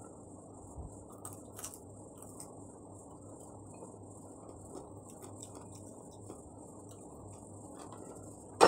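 Faint eating sounds: a person chewing, with a few light clicks about one to two and a half seconds in, over a steady low hiss. A sudden short loud sound comes right at the end.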